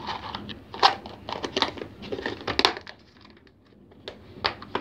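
A packet of raw nuts rustling and crinkling as it is handled and folded shut, with rapid clicks, for about three seconds. Then two sharp clicks about four seconds in.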